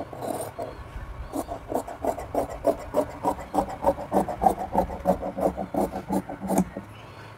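Large tailor's shears cutting through pant cloth on a table: a quick, even run of snips, about four a second, that stops shortly before the end.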